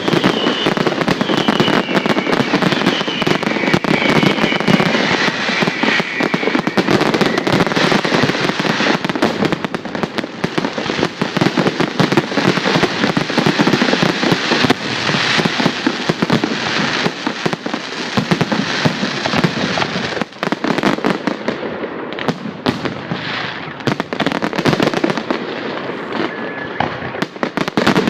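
Fireworks display: a dense, continuous barrage of bangs and crackling. After about twenty seconds it thins out into fewer, more separate bangs.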